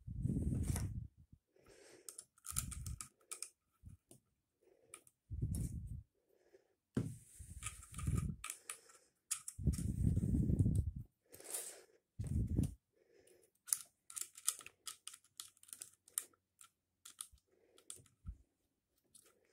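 Hands fitting a holster hanger's metal hardware onto a segmented hard-plastic gun belt, making irregular handling noise. Several dull low bumps in the first half give way to quick light clicks and rattles of plastic and metal parts in the second half.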